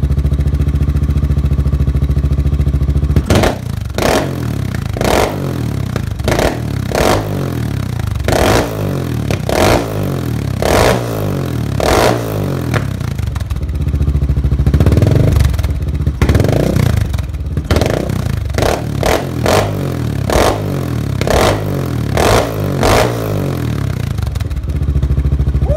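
Honda XR650L's air-cooled single-cylinder four-stroke engine through a Big Gun full exhaust, idling, then revved sharply over and over, roughly once a second for about twenty seconds, with one longer rev about halfway through. It settles back to a steady idle near the end.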